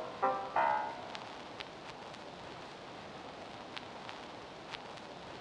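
The closing music ends with two short notes in the first second, then a steady hiss with a few faint scattered clicks, like the surface noise of an old recording.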